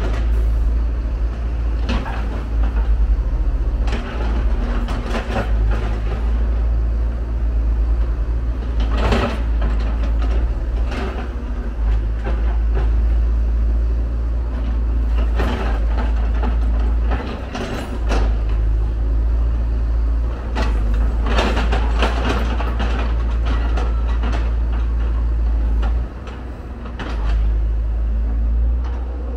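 Hyundai R170W wheel excavator's diesel engine running steadily as it digs, with repeated knocks and scrapes from the bucket working the soil.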